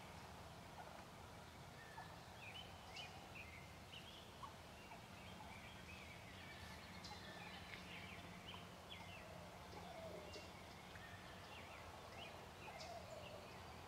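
Faint soft calls of a wild turkey hen, scattered and quiet, with a couple of short low drawn-out notes near the end, among small birds chirping in the woods.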